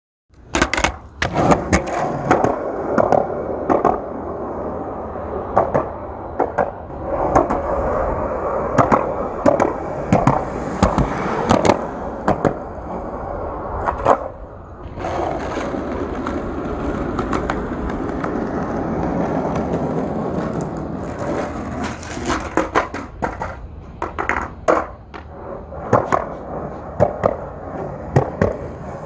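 Skateboard rolling, a continuous grinding rumble of the wheels on pavement, broken by frequent sharp clacks and knocks of the board. The rolling drops away briefly about halfway through, then picks up again.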